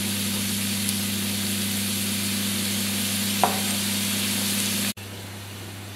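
Potatoes frying in oil in a pan: a steady sizzle over a low steady hum, with a brief squeak about three and a half seconds in. Near the end the sizzle drops suddenly to a quieter level.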